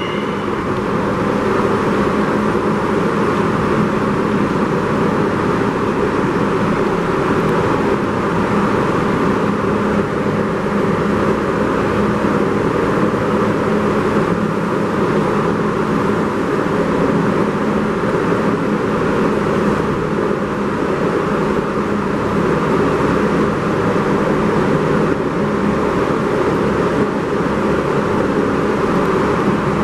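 New York City subway train running, a steady, unbroken rumble of wheels on track.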